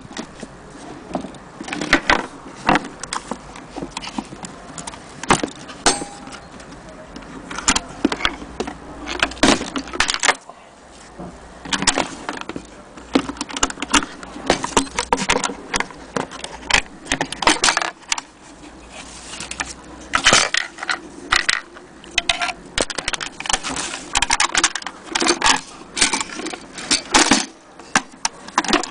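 1930 Corona portable typewriter being worked: irregular metallic clacks and clicks of its keys and typebars, coming in runs with short pauses.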